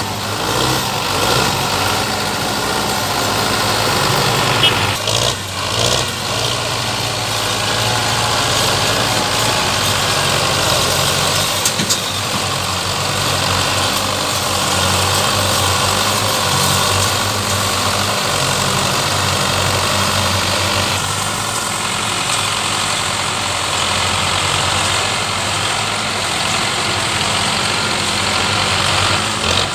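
Belarus tractor diesel engines running steadily under load as one tractor tows another, hauling a trolley loaded with sugarcane, by a chain.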